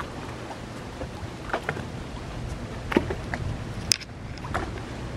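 Wind buffeting the microphone over open shallow water, with small waves lapping and slapping against wooden dock pilings a few times, and one sharp click about four seconds in.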